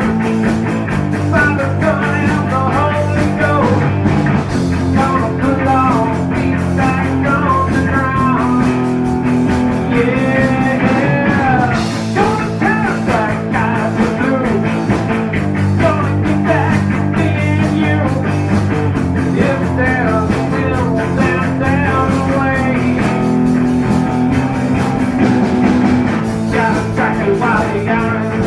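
Rock band playing an instrumental break: a lead guitar line with gliding, bent notes over steady bass and drums.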